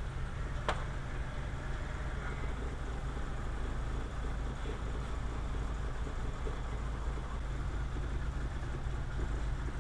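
VW 2.0L ABA inline-four engine running steadily, with one sharp click just under a second in. The engine has an intermittent misfire under load, traced to arcing in the distributor cap at a worn pin.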